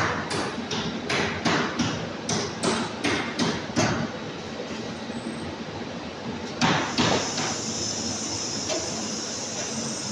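Rotary bottle filling and capping machine running, its mechanism clacking in sharp strikes about three times a second for the first four seconds. After a quieter stretch come two louder knocks, followed by a steady high hiss.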